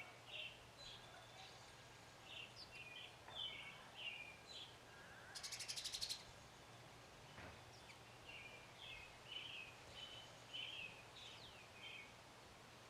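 Small birds chirping in short repeated calls, with a brief fast rattle about halfway through.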